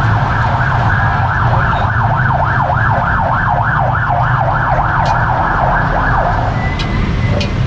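A siren in a fast up-and-down yelp, about three to four sweeps a second, that stops about six and a half seconds in, over a steady low street rumble.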